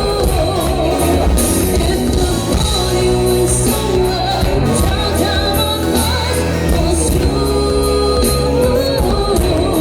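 Live pop-rock band playing with a singer, over a steady heavy bass line.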